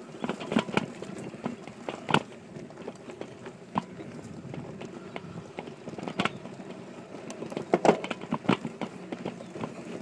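Mountain bike riding over bumpy grass, heard through a handlebar-mounted phone: a steady rumble broken by irregular knocks and rattles from the mount and bike, the loudest about two seconds in and again near eight seconds.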